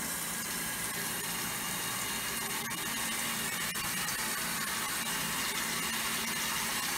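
Bathroom sink faucet running steadily, a stream of water falling into the basin and down the drain.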